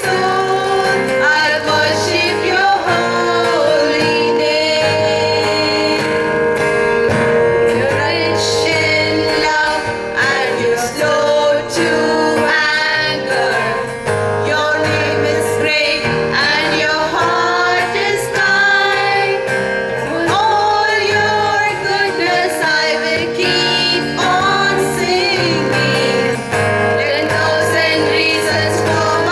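A choir singing a prayer song with instrumental accompaniment.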